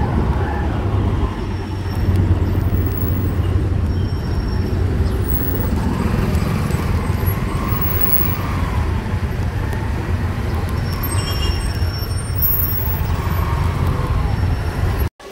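Steady street traffic noise: the engines of cars and auto-rickshaws running close by. It stops abruptly near the end.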